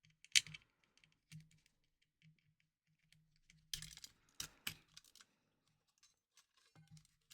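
Small sharp clicks and taps of console parts being handled and fitted while the volume buttons go in. There is one loud click about half a second in and a quick run of clicks around four to five seconds in.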